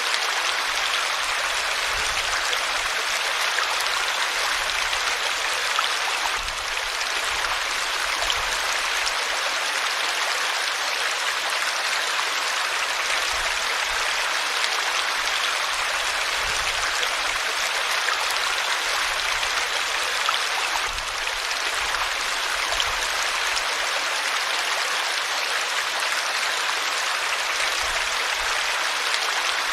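Flowing river water rushing steadily: an even, unbroken hiss of moving water.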